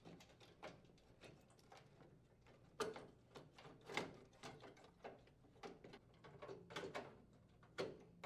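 Faint plastic clicks and knocks of a microwave's door switch holder being handled and its tabs pushed into the slots of the frame, with a few sharper clicks about three seconds in, at about four seconds, and near the end.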